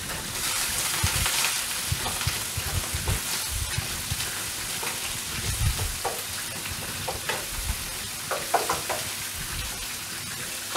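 Diced onion and pork sizzling in hot oil in a frying pan, stirred with a wooden spoon that scrapes and knocks against the pan now and then.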